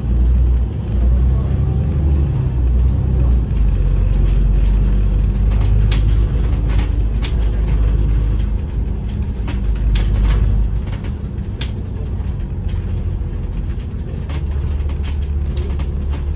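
Inside a moving double-decker bus: the steady low rumble of its engine and road noise, with a few sharp rattles in the middle.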